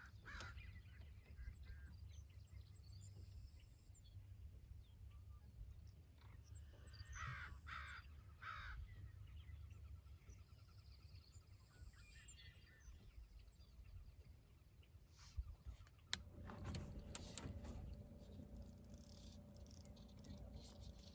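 Quiet outdoor ambience with a low rumble, and a few harsh bird calls in quick succession about seven to nine seconds in. Near the end come some clicks and knocks over a faint steady hum.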